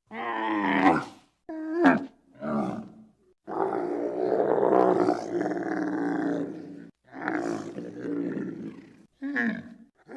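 Giraffe calling: a run of about six pitched, groaning calls of varying length, the longest held for about three and a half seconds near the middle.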